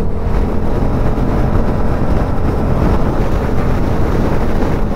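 Yamaha MT-07's parallel-twin engine with a Dominator aftermarket exhaust running steadily at motorway cruising speed, around 125 km/h, mixed with wind rushing over the microphone.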